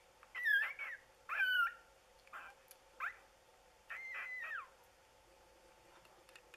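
Newborn, two-day-old Lagotto Romagnolo puppies squeaking and whining while nursing: about five high, thin squeaks in the first five seconds, the last one longer, holding its pitch and then dropping away. A faint steady hum lies underneath.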